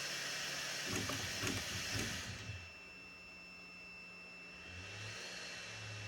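Bambu Lab A1 3D printer running: a steady fan hiss that drops away about two and a half seconds in, with a few short low motor buzzes just before it. A faint thin steady tone sounds throughout, and a low hum comes in near the end.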